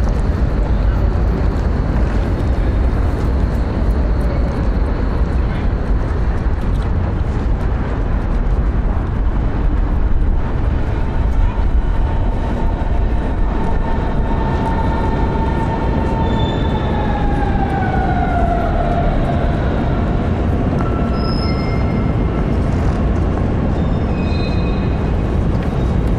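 Electric train running: a steady low rumble with a motor whine that holds, then falls in pitch about two thirds of the way through.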